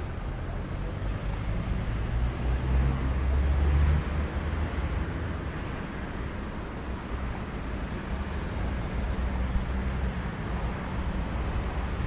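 Road traffic going by on a city street: a steady rumble of passing cars that swells about three seconds in and then settles back to a constant hum.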